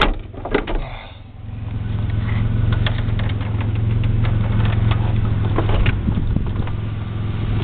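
Car stereo with 15-inch subwoofers playing a bass-heavy rap track, heard inside the car's cabin. A deep, steady bass note dips about a second in, then swells back up and holds.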